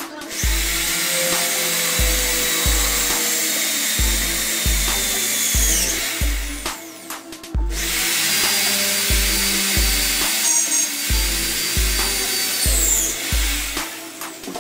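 Handheld electric jigsaw run unloaded twice, about five seconds each time, with a steady high whir and a falling whine as the motor winds down after each run. Background music with a steady thumping beat plays throughout.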